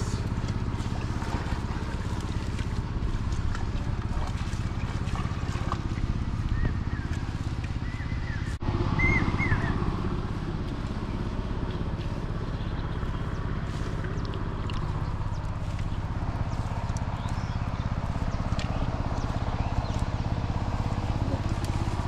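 A small engine running steadily, a low, even drone with a brief break partway through.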